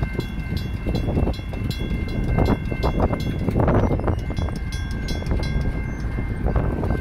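Railroad crossing warning bells ringing: a mechanical bell striking about three times a second alongside the steady tone of an electronic crossing bell, over the low rumble of a freight train. The rapid strikes thin out after about four and a half seconds, and there is a brief rustle near the middle.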